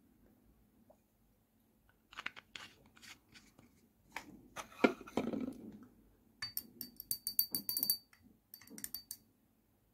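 Knocks and light clatter of things being handled on a tabletop, the loudest a sharp knock about five seconds in. Then a stirring rod clinks quickly against the inside of a glass shot glass, many rapid taps with a high ringing note, about six and a half seconds in and again briefly near the end.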